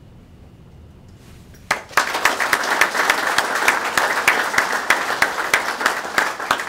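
Quiet room for the first couple of seconds, then an audience breaks into applause, steady hand-clapping until the end.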